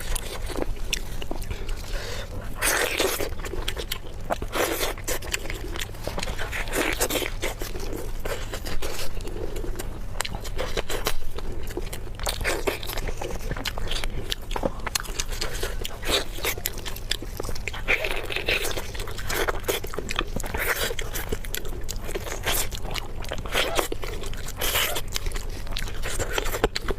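Close-miked eating: biting, crunching and chewing food with many irregular wet clicks, over a steady low hum.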